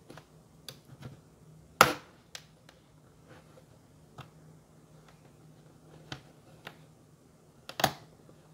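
Plastic bottom cover of a Dell Inspiron 15 7000 2-in-1 laptop being pried off the chassis with a plastic triangle pry tool. Scattered light clicks and two sharp snaps, about two seconds in and near the end, come as the cover's retaining clips release.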